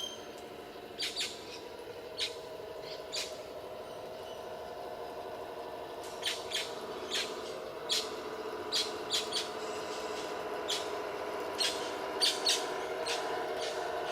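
Small electric motors and gearing of a radio-controlled construction vehicle whining steadily, with a dozen or so short sharp clicks scattered through it.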